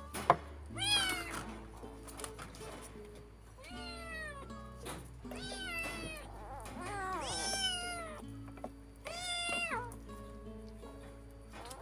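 Kitten mewing repeatedly while being fed: about five high, thin cries, each falling in pitch, from a hungry kitten. Soft background music with steady held notes runs underneath, and a single sharp click sounds just after the start.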